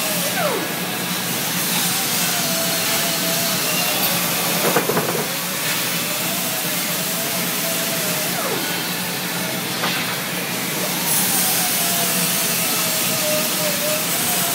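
Brazing torch flame, its gas fed with liquid flux, hissing steadily with a wavering tone running through the hiss. A brief knock about five seconds in.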